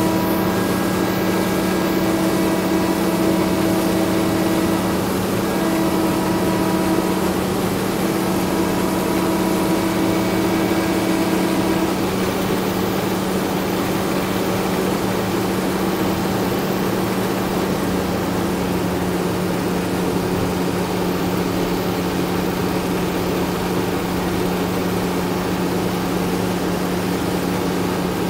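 International 1460 combine running steadily while its unloading auger pours sunflower seed into a steel trailer: a constant engine hum with the hiss of pouring seed over it. A higher steady tone sits on top and drops out about halfway through.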